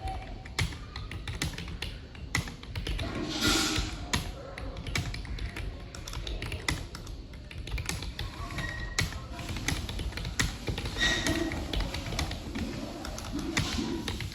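Computer keyboard keys clicking in rapid, irregular typing.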